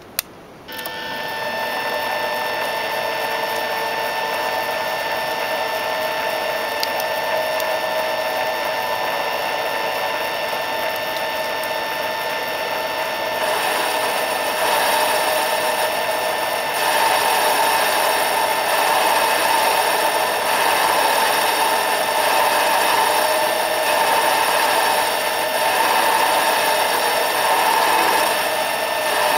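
Micro lathe starting up with a click and running with a steady motor whine. From about 14 seconds in, the tool takes a light turning cut on the spinning piston, adding a rougher, wavering hiss.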